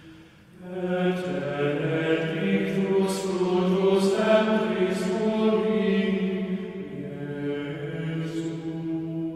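Voices chanting a liturgical prayer or hymn in long held notes. There is a short break just after the start, and the chant resumes under a second in.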